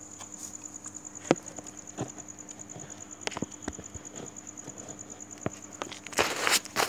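Crickets chirping in a steady high trill, over a faint low hum, with scattered small clicks. Near the end a plastic snack packet crinkles loudly.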